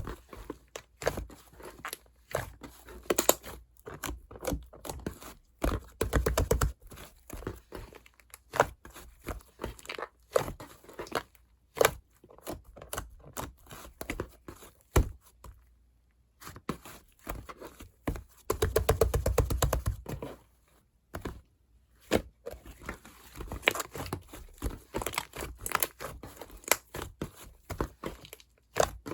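Fluffy clay slime being kneaded and stretched by hand, giving a run of sticky crackling pops and tearing sounds. There are two longer squeezes, about six seconds in and again around nineteen seconds.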